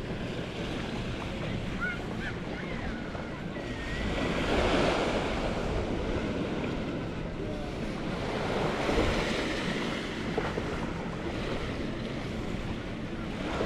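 Small waves washing onto a sandy shore, the wash swelling about four seconds in and again around nine seconds, with wind buffeting the microphone.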